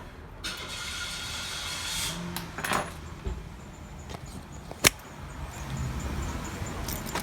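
A car running as it pulls up, with a low rumble and a hiss that swell in about half a second in. A single sharp knock about five seconds in.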